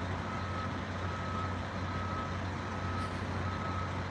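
A large vehicle's reversing alarm beeping, a steady run of short high beeps all at one pitch, over the low, steady hum of an idling engine.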